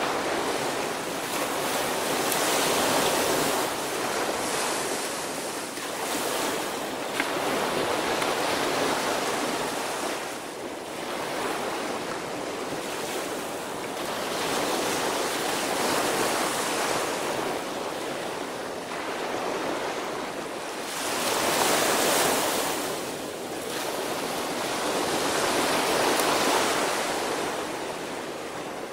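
Small ocean waves breaking and washing up a sandy beach, the surf swelling and fading every few seconds as each wave comes in.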